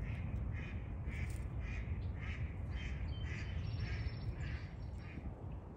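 An animal calling in a steady series of short, harsh, crow-like calls, about two a second, fading toward the end, over a constant low rumble.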